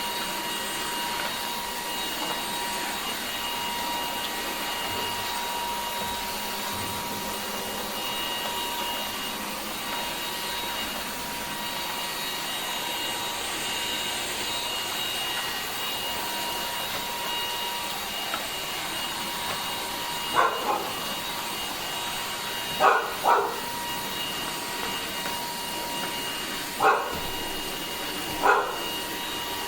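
Dreame H12S cordless wet-dry vacuum running steadily, a motor hum with a thin high whine. In the last third it is broken by about half a dozen short, sharp sounds louder than the motor.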